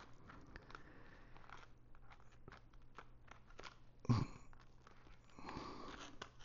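Fabric rustling and small scattered clicks from hands working the zipper and shell of a soft inflatable dog cone collar, zipping its shield on. There is one louder knock about four seconds in.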